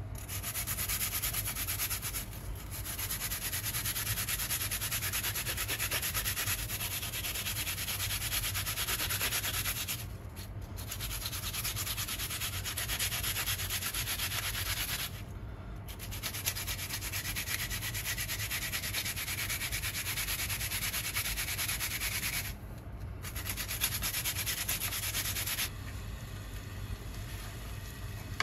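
Onion being rubbed back and forth on a plastic grater: a steady rasping in long stretches broken by short pauses. Near the end the grating stops.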